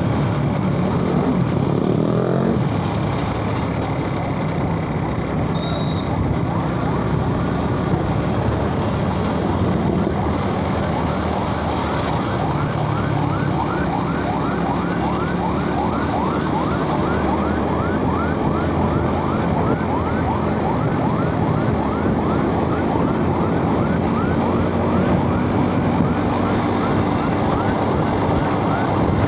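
Suzuki Smash 110 cc single-cylinder four-stroke motorbike riding through town traffic, the engine revving up near the start. A short high beep about six seconds in, and from about a third of the way in a siren-like rising chirp repeats about twice a second over the traffic noise.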